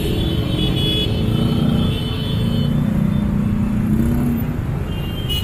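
Busy city street traffic: cars and motorcycles running with a steady, dense rumble. A low engine drone stands out through the middle.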